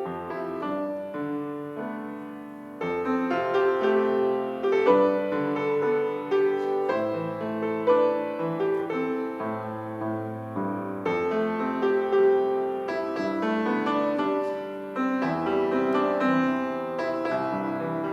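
Piano playing a slow piece of music, several notes sounding together.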